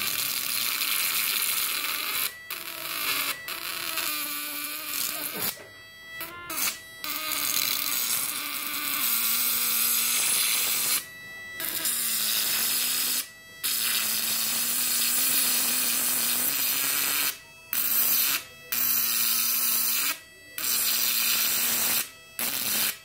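High-voltage electric arc from a homemade 1000-watt fish-shocker inverter drawn between its output leads: a loud, harsh electric buzz with a wavering low hum under it. It cuts out briefly about ten times as the contact breaks and strikes again.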